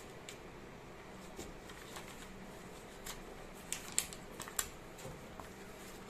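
Paper instruction sheets and adhesive tape being handled: faint rustling, with a quick cluster of sharp crackles a little past the middle as the tape is pressed onto the paper.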